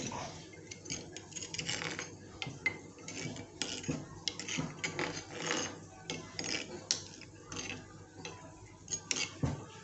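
Spoon and kitchen utensils clinking and scraping against a pot and bowl in a run of light, irregular clicks, as water is scooped from the pot to rinse out the container of ground spices.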